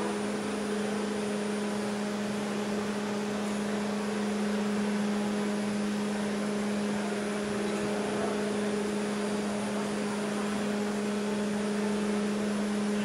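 Steady machine hum: a constant low tone and the octave above it over an even rushing noise, unchanging throughout.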